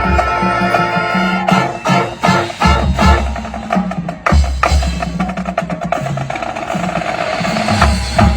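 High school marching band playing: sustained band chords over drums, with a run of sharp drum strikes about two seconds in and deep bass-drum hits throughout.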